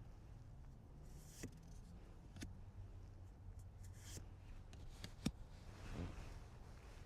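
Quiet close-up handling of cards and their packaging: soft rustling and scraping with a few scattered light clicks and taps, the sharpest about two-thirds of the way through, over a low steady hum.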